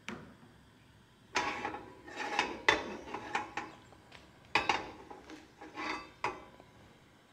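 Cooking pan and utensils being handled, clattering and scraping in two bursts of knocks, with quiet between.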